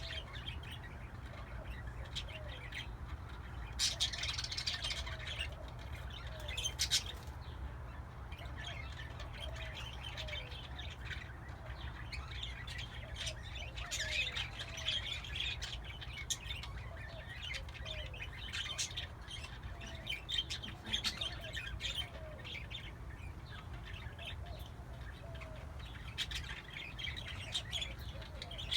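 Several pet parakeets chirping and chattering without a break, with louder squawking bursts about four, seven and fourteen seconds in. A steady low hum runs underneath.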